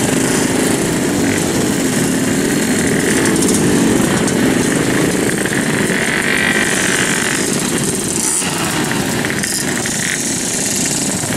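Several Yamaha RX King two-stroke single-cylinder motorcycles riding past at low speed with their throttles blipped again and again, the engine notes overlapping and rising and falling, one climbing in pitch about two-thirds of the way through.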